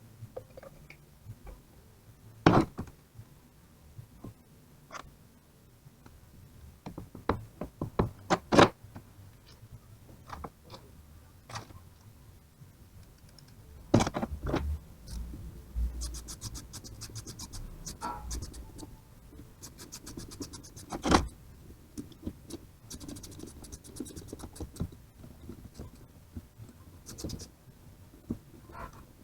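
Hand tools and metal alternator parts knocking and clicking against each other during work on a car alternator, scattered single knocks with a few louder ones, and spells of fine rapid scratching in the second half.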